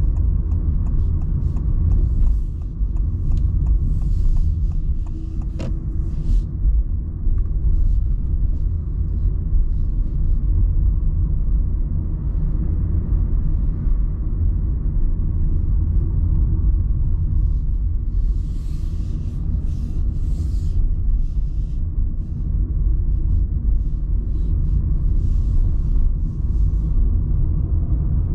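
A car's steady low engine and tyre rumble as it drives along, heard from inside the cabin, with a few faint brief hisses now and then.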